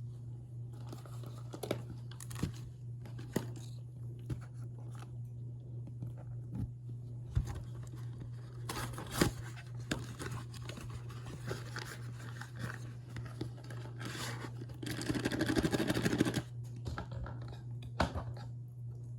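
Cornstarch powder and chunks being crunched and compressed, giving scattered squeaky crunches and crackles, with a denser stretch of crunching about three quarters of the way in. A steady low hum runs underneath.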